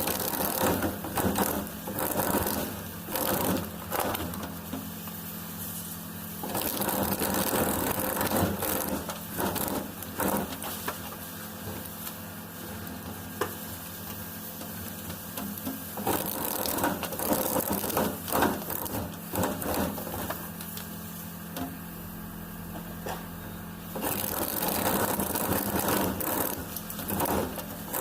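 Motor-driven machine running steadily with a hum, with repeated spells of several seconds of rough scraping and grating as material is pressed against its spinning blade.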